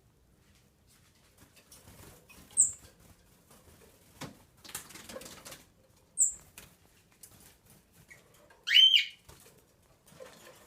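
A small bird loose indoors, fluttering with faint rustles and giving two short, high chirps a few seconds apart, then a louder call that bends in pitch near the end.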